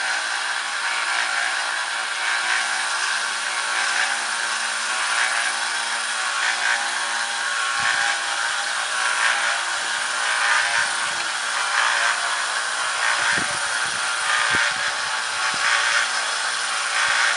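Small belt grinder running with an 800-grit polishing belt, a longsword's steel edge held against it: a steady hiss of abrasive on steel over a faint motor hum.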